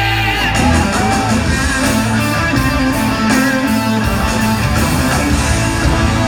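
Rock music led by guitar, playing steadily throughout.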